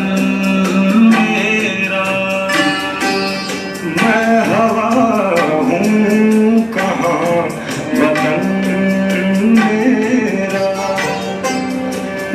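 A recorded song played back: a singing voice over plucked strings and a steady hand-drum beat.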